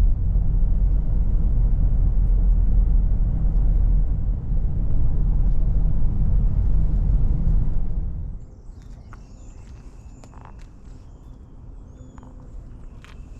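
A loud, uneven low rumble for about eight seconds, which cuts off suddenly. After it, birds chirp and call, with short high notes and quick glides.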